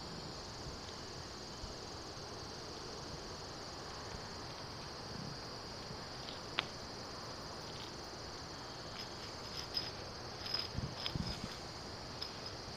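Steady high-pitched chirping of crickets in the background. A single sharp tick about six and a half seconds in, and a few faint taps and scrapes near the end as a puppy works a garden hose on concrete.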